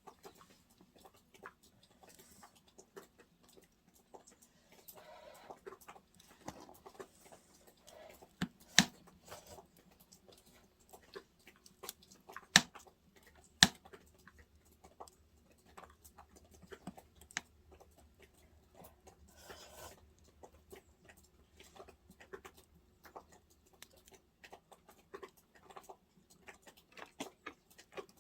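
Wood fire crackling, with many small irregular snaps and three sharp, loud pops about 9, 12 and 13 seconds in.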